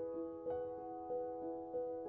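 Soft background piano music, a slow melody with a note struck about every half second, each ringing and fading.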